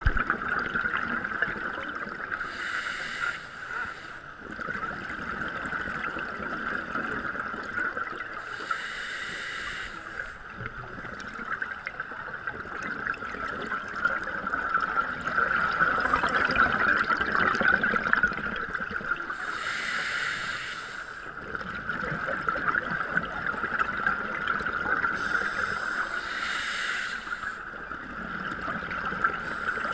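Underwater sound on a scuba dive: a scuba regulator's exhaled bubbles rushing and gurgling in four bursts several seconds apart, over a steady high hum.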